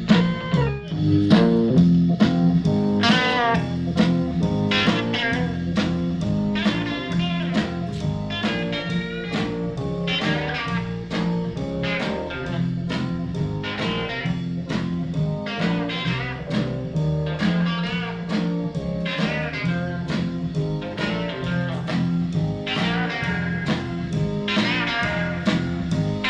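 A guitar-led blues-rock song played back through an Acoustic Audio AA40CW center channel speaker with only one of its two 4-inch woofers working, picked up by a GoPro's built-in microphone.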